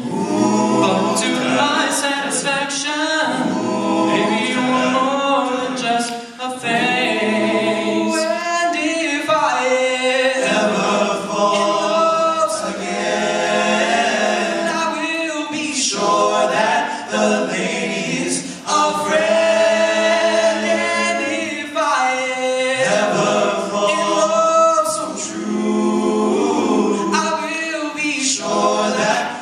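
A male vocal group singing a slow song in several-part harmony into handheld microphones, amplified through a PA in a hall.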